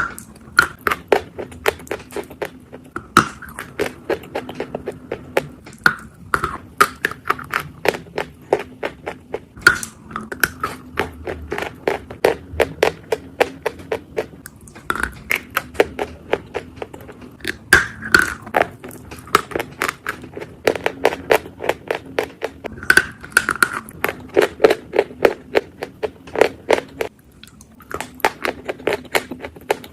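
Close-miked biting and chewing of dry edible chalk: a dense run of sharp, crisp crunches, several a second, with a short pause near the end.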